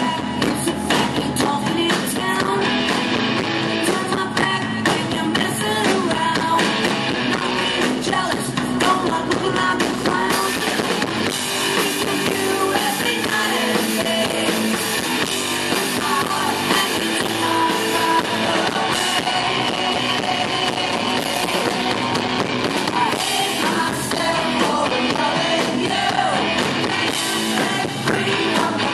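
Live rock band playing: a woman singing lead over electric guitars and a drum kit.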